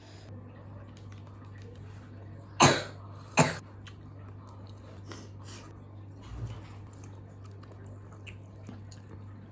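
A person coughs twice, sharply and close together, while eating spicy bakso. Faint chewing and small mouth clicks come before and after, over a steady low hum.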